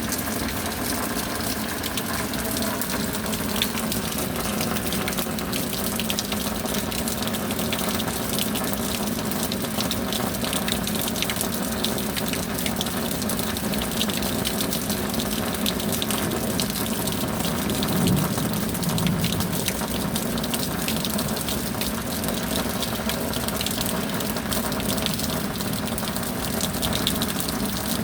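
Heavy rain falling steadily: a dense patter of drops over a rush of running, gushing water, with a brief swell about two-thirds of the way through.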